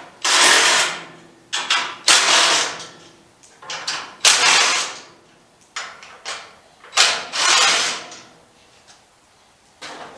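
Hand ratchet wrench working on the front-end bolts, in four quick rasping runs of clicks, each under a second long, with a few single clicks between them.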